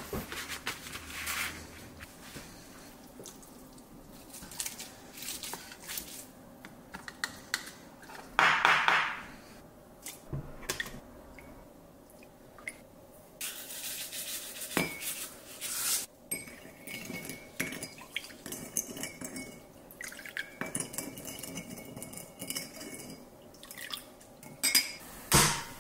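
Kitchen utensils and dishes clinking and knocking in an irregular string of sharp knocks, with a brief louder scraping noise about a third of the way through and a few ringing clinks later on.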